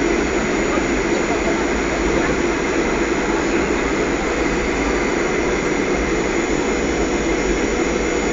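Steady jet engine and airflow noise of a Ryanair Boeing 737, heard from inside the cabin during the final approach to landing, with the ground close below.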